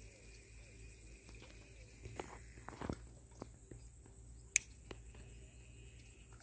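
Scattered soft taps and knocks from fishing tackle as a topwater frog lure is worked for snakehead, the sharpest about four and a half seconds in, over a steady high whine.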